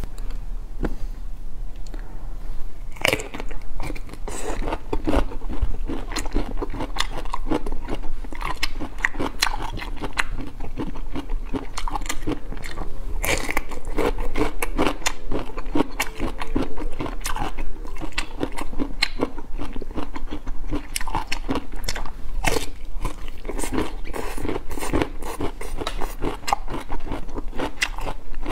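Close-miked eating: a person biting into and chewing soft rolled food topped with chili flakes, a dense run of small crunches and clicks from about three seconds in. A steady low hum lies underneath.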